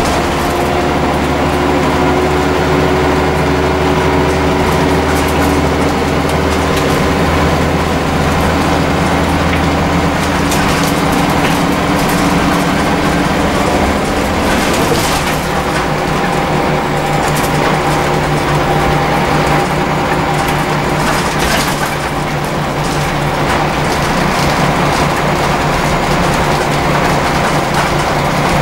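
Scania L94UB single-deck bus heard from inside the saloon while driving: a steady engine and road noise whose engine note shifts to a different pitch about halfway through, with occasional knocks and rattles from the body.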